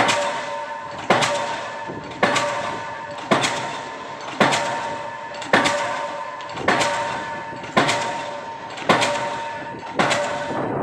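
Diesel pile hammer driving a precast spun concrete pile: a heavy metallic blow about once every second, ten in all, each followed by a ringing that fades before the next strike.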